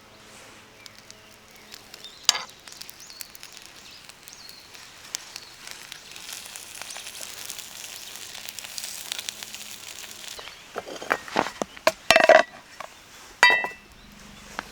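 Food sizzling in a pan over a campfire, the hiss swelling in the middle. Cookware knocks twice, a cluster of sharp knocks comes near the end, and then a short ringing clink.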